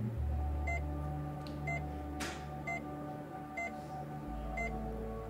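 Hospital patient monitor beeping steadily, a short high beep about once a second, over soft sustained low chords that change about four seconds in.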